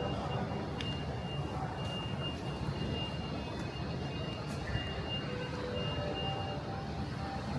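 Steady low vehicle engine rumble, with a thin high whine that comes and goes and stops near the end.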